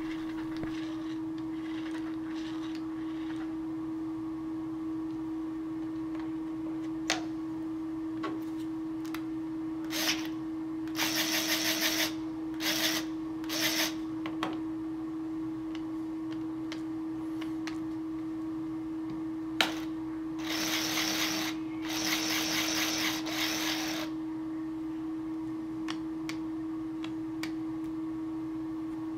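A steady hum throughout, with a few sharp clicks, and two clusters of short motor runs from the ERC 723 electric linear actuator's gear-driven drive, about eleven and twenty-one seconds in.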